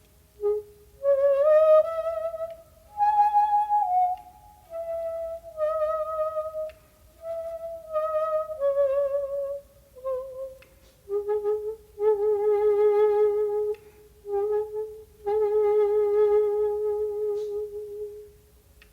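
Solo shakuhachi, the Japanese end-blown bamboo flute, playing a honkyoku piece: short phrases of notes with vibrato, broken by breath pauses. It climbs to a higher note about three seconds in, steps back down, and near the end settles on a long held low note.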